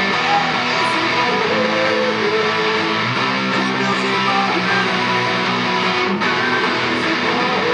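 Background music: a strummed guitar track.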